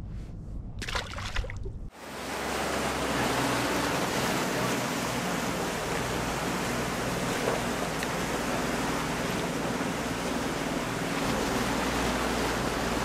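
Boat underway: a steady rush of wind and water with a motor's low, even hum beneath it. It starts suddenly about two seconds in, after a quieter stretch with a couple of knocks.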